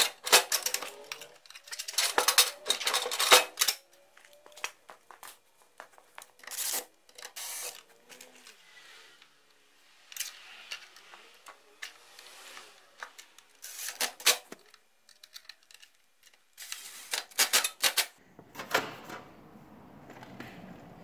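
Irregular clattering and knocking as a snowmobile battery and its hold-down parts are handled and set into the battery tray, with short bursts from a cordless drill fastening them.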